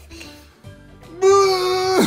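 A person's drawn-out pretend crying wail. It starts loud and held on one steady pitch about a second in.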